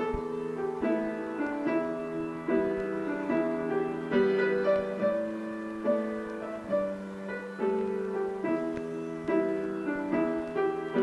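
Jazz piano music, a run of chords that changes about every half second to a second.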